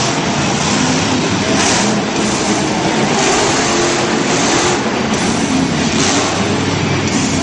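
Monster truck engine running loud and revving, a continuous din with brief surges in level.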